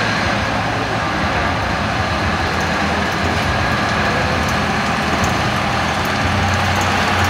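Small DR class 100 shunting locomotive's diesel engine running steadily as the locomotive pulls slowly off the turntable, with a steady low hum.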